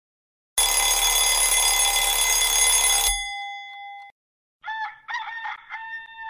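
Alarm clock ringing loudly for about two and a half seconds, then cut off suddenly, a couple of its tones dying away; about a second later a rooster crows.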